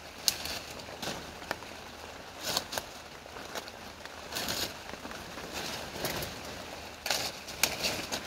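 Leafy salal stems being picked by hand: irregular sharp snaps and crackly rustling of leaves and branches, a few strokes a second at times, over a steady background hiss of rain.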